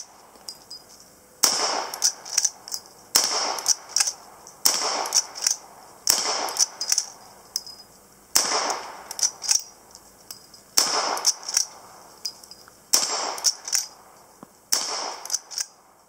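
New Original Henry lever-action rifle in .44-40 firing eight shots, about two seconds apart. Each shot is followed by the clacking of the lever being worked to chamber the next round.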